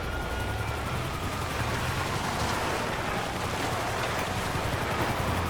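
Video game audio of a vehicle engine running steadily, a low rumble with a faint wavering tone above it.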